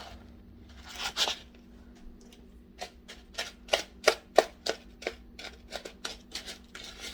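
Short irregular clicks and taps, about two a second, from seasoning and mixing raw shrimp in a bowl by hand, over a steady low hum.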